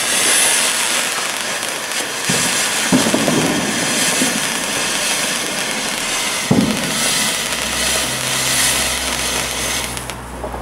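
Firework fountain burning with a steady hiss of sparks and a few pops along the way, dying away near the end.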